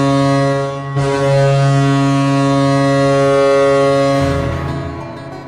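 Hockey arena goal horn blowing: a loud, low-pitched horn blast that breaks off briefly about a second in, then one long blast that fades out over the last second or so.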